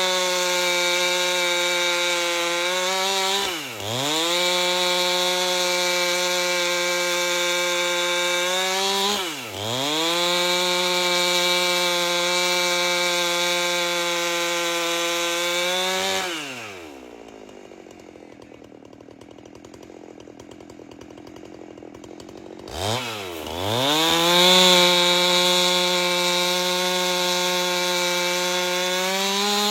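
Two-stroke chainsaw with a 30-inch bar running at full throttle, ripping an albasia log lengthwise. Twice the engine briefly drops in pitch and picks up again. Then it falls to idle for about six seconds before revving back up to full speed.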